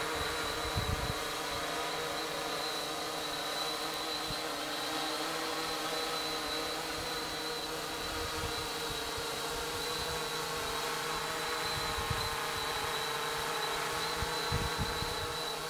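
Multirotor drone's electric motors and propellers humming steadily with a high, even whine as it hovers, holding its position.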